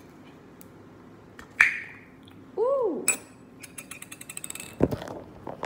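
Metal twist-off cap being wrenched off a small glass bottle of Jumex mango nectar: a sharp click with a ring, a brief rising-and-falling tone, then a quick run of ratcheting clicks as the cap turns, and a loud thump near the end.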